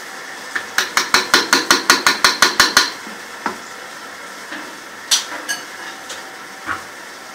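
Hand blender knocking against the rim of a nonstick pan: a quick even run of about a dozen sharp clicks lasting about two seconds, then a few single knocks.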